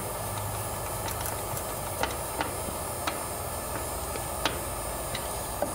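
Steady low hum in the background, with a few light clicks as stiff electrical wires are bent and handled.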